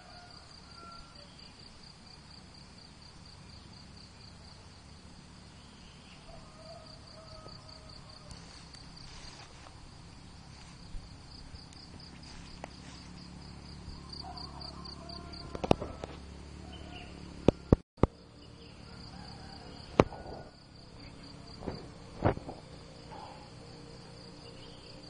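Insects chirping in a steady, high-pitched pulsing trill, with a faint low rumble underneath. A few sharp clicks and knocks come in the second half and are the loudest sounds.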